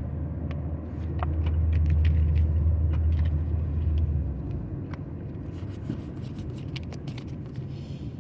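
A low rumble that swells and then fades out about four seconds in, with light crinkles and taps of a foil booster pack and trading cards being handled over it.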